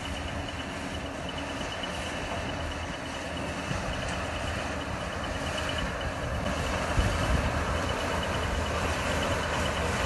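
Combine harvester running in a maize field: a steady engine drone with a low rumble and a constant high whine, slowly growing louder as the machine draws nearer.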